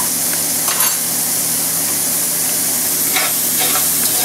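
Mushrooms and bacon sizzling in hot fat in a cast-iron pot, with a spoon stirring and scraping against the pot a few times.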